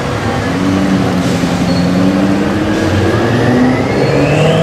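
BMW M6's twin-turbo V8 running through a full Akrapovic exhaust with the catalytic converters removed, as the car pulls away; the engine note holds fairly steady and dips slightly near the end.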